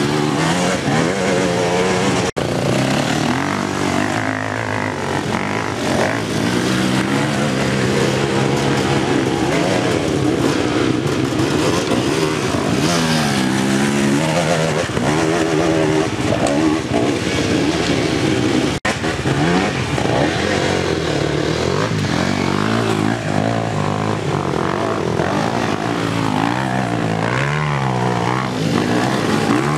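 Enduro dirt-bike engines revving up and down again and again as the bikes ride over rough ground, the pitch rising and falling. The sound drops out for an instant twice, about two seconds in and again around nineteen seconds.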